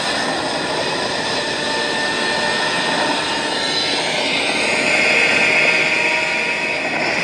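A monster roar sound effect: one long, loud, harsh roar that grows shriller about two-thirds of the way through.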